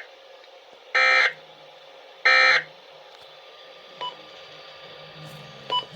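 Emergency Alert System SAME data tones: two short raspy digital bursts about 1.3 s apart, the tail of the three-burst end-of-message signal that closes an alert. A faint low hum and two faint clicks follow.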